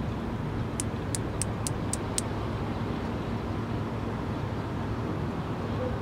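A male Platypedia putnami cicada snapping its wings: six sharp, dry clicks in quick succession, about four a second, its call for a mate. A steady low traffic rumble runs underneath.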